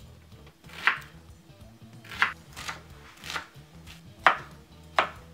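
Cleaver chopping a tomato on a wooden cutting board: about seven sharp knocks at an uneven pace, the loudest a little after four seconds in.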